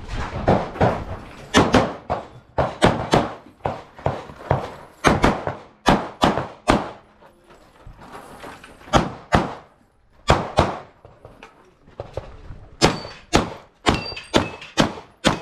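Glock 45 9mm pistol fired in rapid pairs and short strings, with brief pauses between groups as the shooter moves between targets. Near the end a few shots are followed by a short ringing note.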